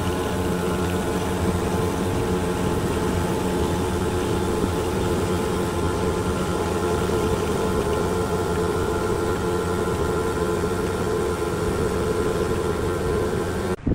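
A workshop machine running steadily: a constant mechanical hum with several unchanging tones, cutting off abruptly near the end.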